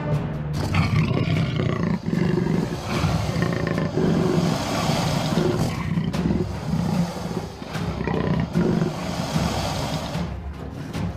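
Jaguar growling and roaring in rough, repeated surges as it attacks a caiman at the water's edge.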